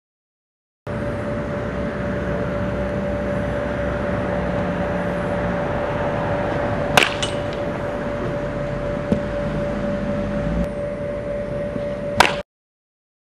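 A baseball bat cracks against a ball twice, once about halfway through and once near the end, over a steady background hum. The sound cuts to silence for about a second at the start and again near the end.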